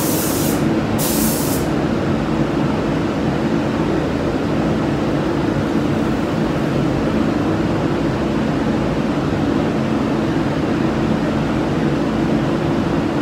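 Paint spray gun hissing in two short bursts in the first second and a half, then stopping, over the steady humming drone of the spray booth's ventilation running throughout.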